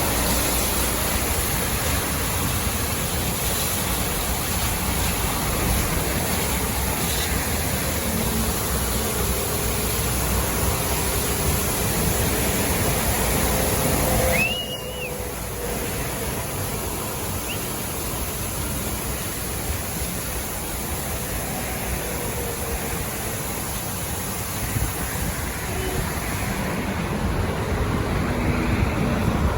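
Water jets of a truck wheel-wash system spraying, a steady rush of water mixed with a truck's running engine. About halfway through the sound changes abruptly and drops a little in level.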